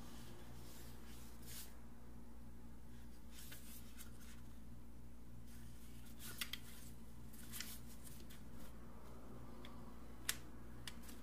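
Faint handling noise from gloved hands turning a cordless pressure-washer gun: a few light clicks and rubs over a low steady hum.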